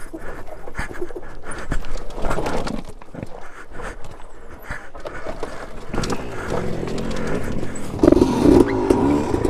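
Alta Redshift MXR electric dirt bike ridden over rough, rocky trail: repeated knocks and clatter of tyres and suspension over rocks. From about eight seconds in, a louder pitched whine comes in as the electric motor works under load.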